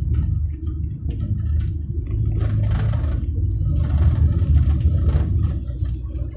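Low, steady rumble of road traffic and machinery at roadworks, with a few brief louder rushes of noise.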